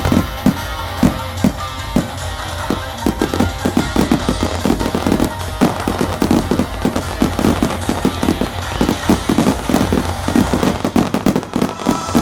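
Aerial firework shells bursting in quick succession, many bangs and crackles that come thicker and faster from about three seconds in, with music playing along with the display.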